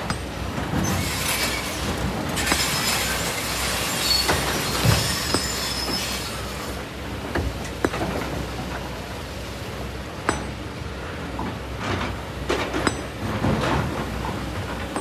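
Kobelco SK200 excavator at work in sand and rock: its diesel engine hums steadily while the steel bucket scrapes and grinds through stones, with a squealing metal scrape in the first half and scattered knocks and clinks of rock later.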